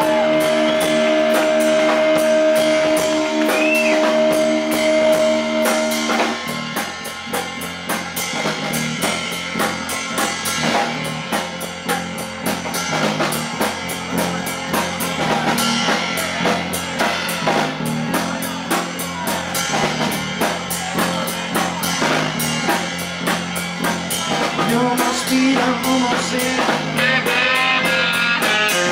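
Live rock band heard through the stage amps and monitors: an electric guitar chord rings out steadily for about six seconds, then the drums, bass and guitars come in together playing a driving rock beat.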